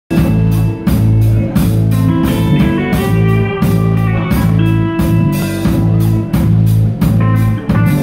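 Live rock band playing: electric guitars and drum kit over a steady beat, with a lead guitar line stepping through a melody.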